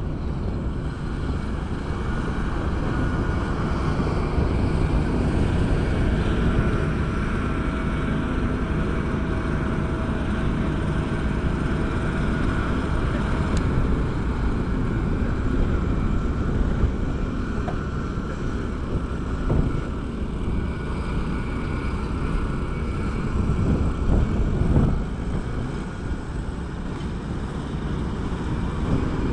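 Diesel engines of asphalt paving machinery (paver, tipper truck, road rollers) running steadily, with a faint steady whine over the engine noise.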